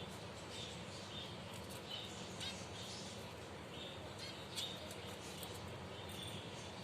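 Finches chirping: short, high chirps repeated every half second or so, with a few sharper calls, the loudest about two-thirds of the way in, over a steady hiss.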